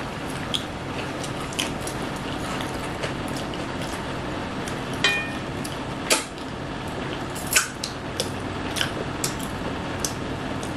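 Mouth sounds of two people eating by hand: scattered lip smacks, chewing clicks and finger licking, the sharpest about six and seven and a half seconds in, over a steady background hum.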